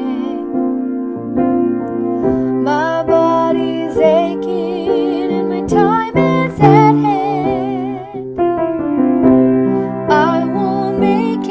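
Piano accompaniment with a woman's voice singing long held notes with vibrato, the alto line of a choral arrangement.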